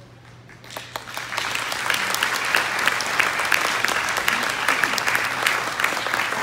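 Audience applause: clapping starts a little under a second in, builds over about a second, then holds as dense, steady clapping from many hands.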